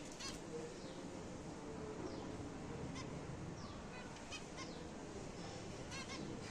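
Zebra finches calling: a handful of short, nasal, honking beeps, some in quick pairs, with a few fainter downward-sliding chirps.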